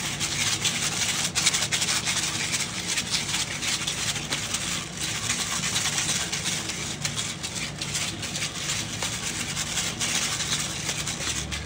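Black pepper grinder twisted by hand, grinding peppercorns without a break: a steady gritty crackle made of many fine rapid clicks.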